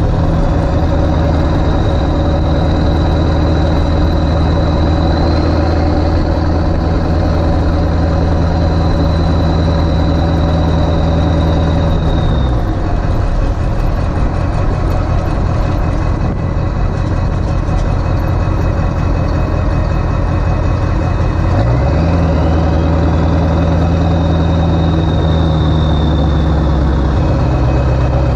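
Ford 7.3 Powerstroke V8 turbo-diesel pulling under load, with a steady low drone and a high turbo whistle. The engine lets off about twelve seconds in and comes back on with a rising whistle a little over twenty seconds in.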